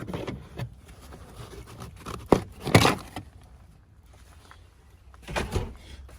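A few sharp knocks and clunks as an interior part is worked loose and pulled out of a pickup cab: two about two to three seconds in, and another pair near the end.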